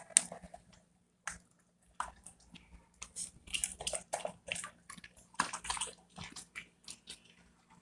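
A dog eating soft, cooked dog food from a bowl: irregular wet chewing and smacking, sparse at first and then thick and fast through the middle.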